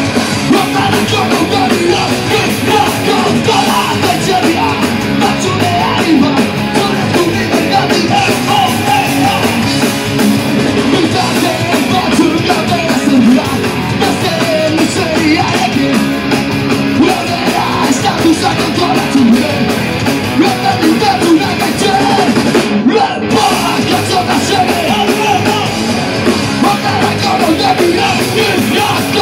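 Live rock band playing loud: distorted electric guitars, bass guitar and a drum kit, with a lead singer's vocals over them.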